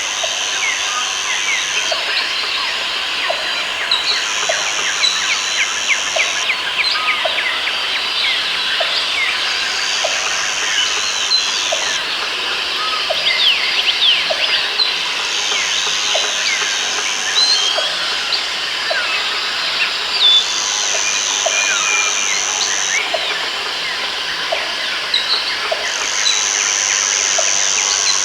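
Rainforest ambience: many birds chirping and calling over one another, a high buzz that comes on in spells of about two seconds with short gaps between, and a regular short call repeating a little faster than once a second.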